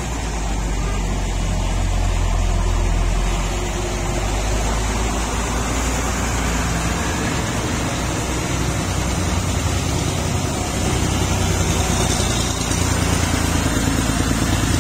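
Diesel engines of a large coach bus and then a small flatbed truck running as they pull slowly through a hairpin bend: a steady low engine drone that grows a little louder near the end as the truck comes close.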